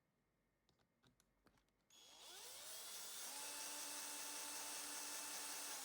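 Power driver driving a screw into a 3D-printed plastic mount: a few light handling clicks, then about two seconds in the motor starts, rises in pitch for about a second and runs steady until it stops just before the end.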